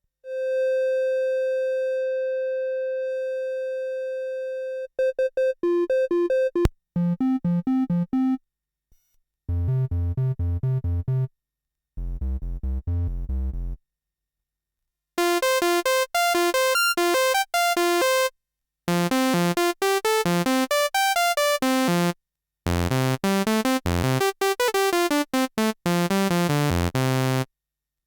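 Yamaha CS01 analog monophonic synthesizer. A single held note opens and fades slowly over about five seconds. Then come short phrases of rapid repeating notes with brief gaps between them, some low and bass-heavy, others bright.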